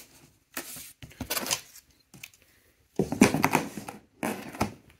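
A cardboard rifle shipping box being opened and the rifle handled inside it: cardboard rustling and scraping in several short bursts, the loudest about three seconds in.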